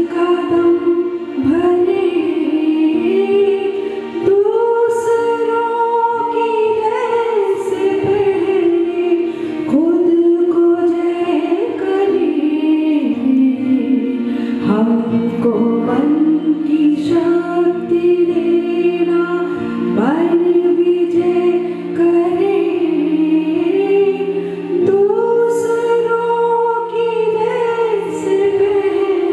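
Girls' voices singing a Hindi prayer song through microphones and a sound system: a slow melody with long held notes that glide between pitches. A steady sustained note runs beneath the voices through the second half.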